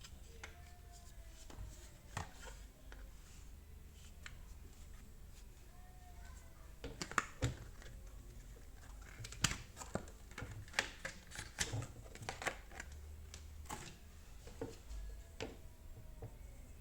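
Handling sounds of unboxing a Ryobi cordless jigsaw: irregular clicks, taps and light rustles of the tool and its packaging, sparse at first and sharper and more frequent from about seven seconds in.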